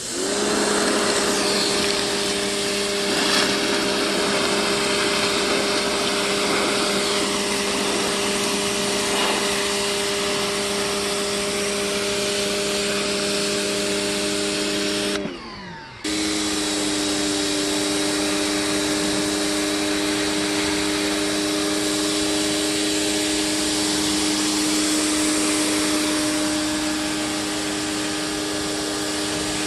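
Electric pressure washer running and spraying water against concrete, a steady motor whine over the hiss of the jet. About halfway through it stops, the whine dropping in pitch, then starts again a moment later at a slightly lower pitch.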